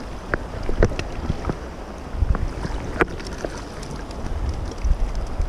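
Trout stream water running, with wind buffeting the microphone in low rumbles and scattered sharp clicks and knocks, the strongest about three seconds in.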